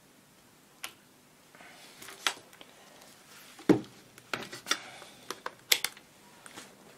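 Handling noise on a workbench: scattered small clicks and knocks as a handheld digital multimeter and its test probes are picked up and moved about. The loudest knock comes a little under four seconds in.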